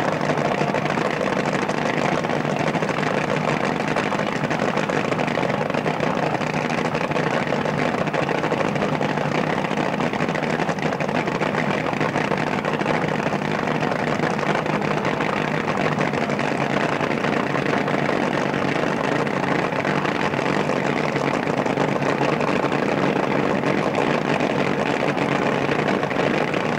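Top fuel drag racing engine idling steadily on the start line, holding an even pitch with no revving.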